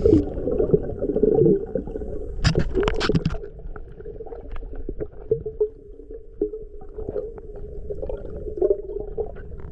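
Muffled underwater sound from a GoPro in its waterproof housing: a low steady rumble with gurgles and small clicks, and a short burst of bubbling about two and a half seconds in.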